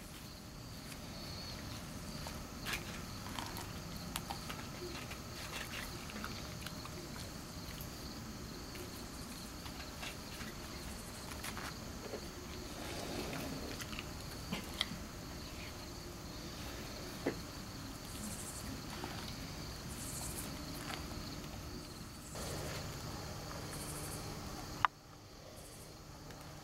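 Dry corn husks crackling and rustling in scattered bits as a rough collie chews and pulls at an ear of sweet corn, over a steady high chirring of crickets.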